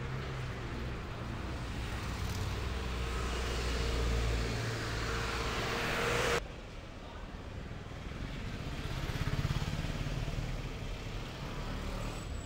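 City street traffic: vehicle engines running close by, with a rising rush of road noise that cuts off abruptly about six seconds in. Quieter traffic rumble follows.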